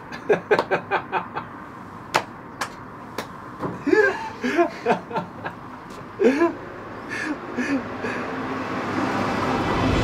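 A man and a woman laughing together in short bursts of giggles. A low swell rises over the last couple of seconds.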